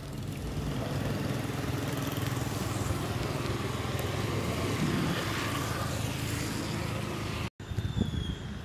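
Steady hiss of falling rain over a vehicle engine idling at a low, even hum; the sound cuts off abruptly near the end.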